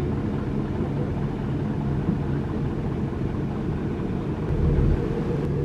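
Heavy diesel engine of a piece of construction equipment running steadily, with a brief low surge a little after four seconds in.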